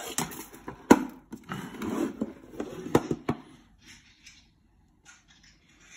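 Handling noise from a metal sweets tin being picked up and turned over. A sharp knock comes about a second in, then rubbing and rustling, and two more knocks around three seconds in.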